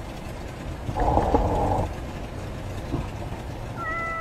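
Skateboard wheels rolling on a concrete path, a steady rumble that swells loudest for about a second. Near the end comes a short cat meow.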